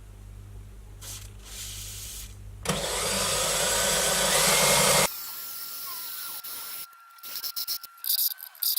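Power drill boring a hole into metal: the motor runs with a low hum, then grows much louder and harsher for about two seconds as the bit cuts, and stops abruptly about halfway through. After it, a thinner steady whine with scattered clicks and knocks.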